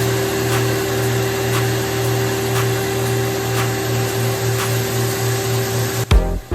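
Electric power tool motor running steadily under background music with a steady beat; the motor cuts off about six seconds in and the music carries on.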